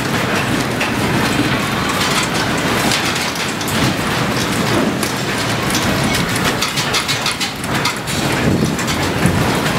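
Steel railway-platform canopy and its fittings rattling without a break as an earthquake shakes the station, a dense, steady clatter.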